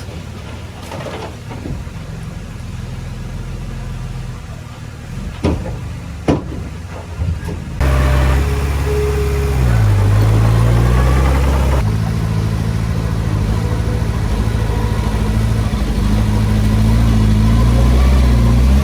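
Heavy diesel engine running. It is moderate for the first several seconds, with a few sharp knocks, then abruptly much louder from about eight seconds in, its pitch dipping and rising.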